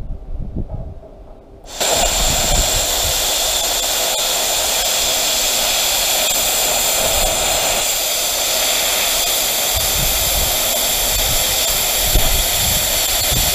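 PrimeWeld CT-520D air plasma cutter cutting through a steel propane tank shell along an angle-iron guide. The steady hiss of air and arc starts abruptly about two seconds in and holds evenly.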